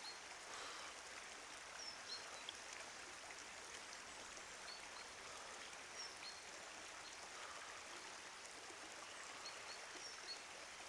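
Faint, steady flow of river water, with short high bird chirps every second or two.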